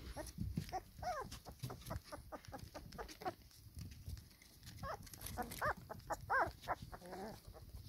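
Four-week-old Labrador puppies whining and yelping as they play, in short squeals that rise and fall in pitch, the loudest a little past the middle. Light clicks and scuffles sound in between.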